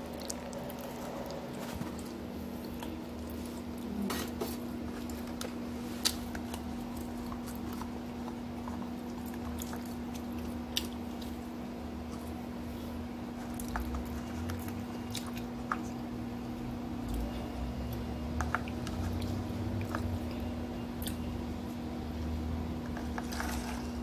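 Close-up chewing and wet mouth sounds of someone eating a chimichanga, with a few sharp little clicks scattered through and a steady low hum underneath.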